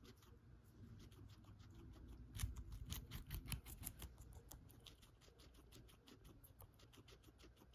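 Guinea pig chewing a celery stalk: quiet, rapid crisp crunches, several a second, loudest from about two and a half to four seconds in.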